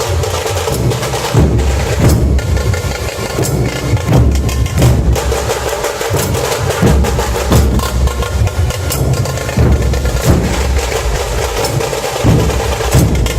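Puneri dhol-tasha ensemble drumming loudly without a break: deep beats of the big barrel-shaped dhol drums under fast, sharp, rolling strokes of the stick-played tasha drums.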